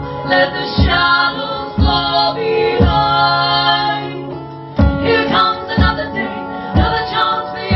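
Live acoustic folk-rock: female voices singing over strummed acoustic guitars, with a low beat about once a second. The music eases off for a moment in the middle, then comes back in full.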